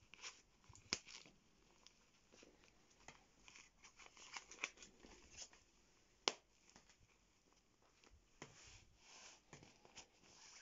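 Faint rustling and crinkling of a glossy nylon puffer jacket's fabric as it is handled by hand, with a sharper crinkle about a second in and another around six seconds in.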